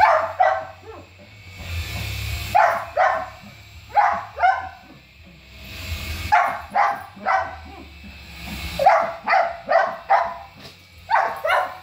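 Small dog barking in short clusters of two to four barks, again and again.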